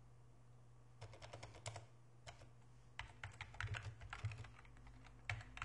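Typing on a computer keyboard: faint, irregular key clicks in short runs, starting about a second in.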